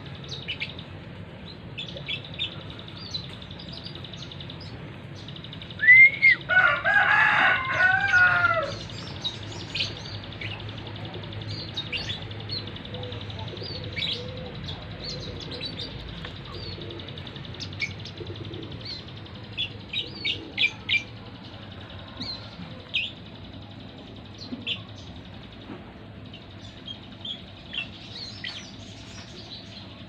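Short, high small-bird chirps scattered through. About six seconds in, a rooster crows, the loudest sound, for about two and a half seconds.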